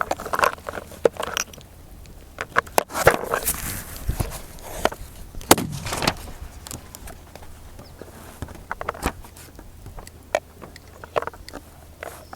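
Scattered sharp clicks, scrapes and short rustles of close handling noise, with a louder knock about five and a half seconds in.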